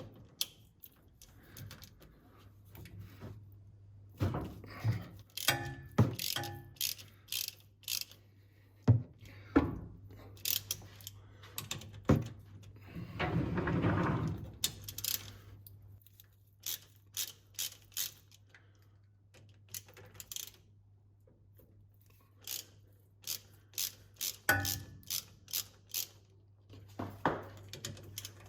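Ratchet and socket clicking in separate strokes as tight bolts on a Holden Commodore differential cover are undone, with metal tools clinking. About halfway through comes a brief rushing noise, and a faint steady low hum sits underneath.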